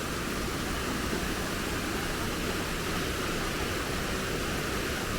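Waterfall's rushing water, a steady, even roar with no change.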